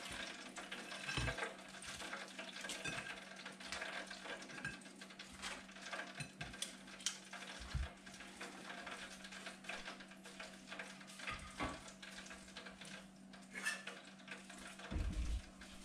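Metal kitchen tongs clicking and tapping as crisp deep-fried chicken goujons are lifted off kitchen paper and set on a china plate, over a faint steady crackle. A soft knock comes near the end.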